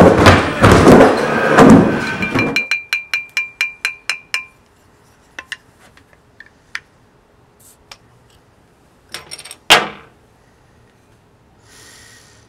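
Loud noise for the first couple of seconds, then a beer bottle being opened with a bottle opener at a glass-topped table: a run of quickening metallic clinks that fade out, a few light clicks, and a sharp pop of the cap about ten seconds in.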